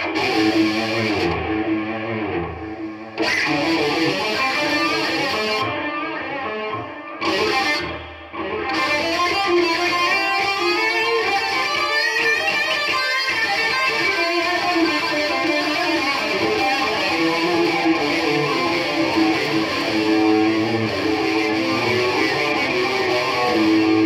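Cort X300 electric guitar played through a Boss Katana 50 MkII amp in delay mode: a stream of picked notes and chords with their delayed repeats. The playing breaks off briefly a few times in the first eight seconds, then runs on without a pause.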